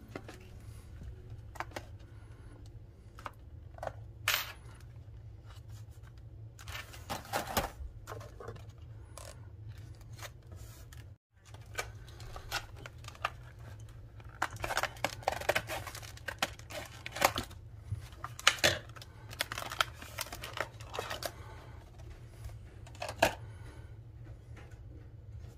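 Hands handling small objects on a tabletop: scattered clicks, taps and short rustles, busiest in the second half, over a steady low hum.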